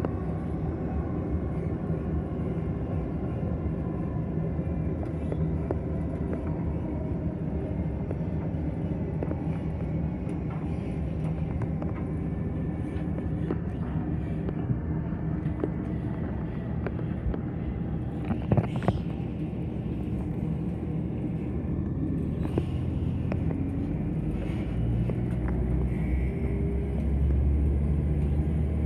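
Class 170 Turbostar diesel multiple unit running at speed, heard inside the passenger saloon: a steady low rumble of the underfloor diesel engine and the wheels on the rails. A sharp knock comes about two-thirds through, and the low rumble grows louder near the end.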